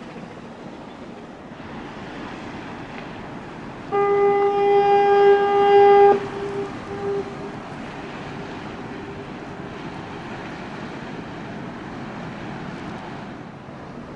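Ship's horn sounding one steady blast of about two seconds, a single pitch with overtones, about four seconds in, cutting off sharply, then two short faint repeats. Before and after it there is a steady background hiss and rumble.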